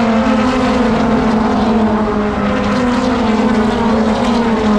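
A pack of NASCAR México race cars and pickup trucks passing on an oval, several V8 engines running together, their pitch falling slowly as they go by.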